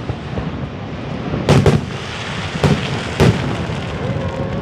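Fireworks shells bursting: four sharp bangs, two close together about a second and a half in, then two more about a second apart, over a steady rushing background.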